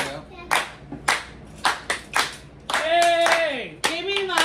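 Hand clapping in a steady beat, a little under two claps a second. About three seconds in, a voice sings a held note that slides down at its end.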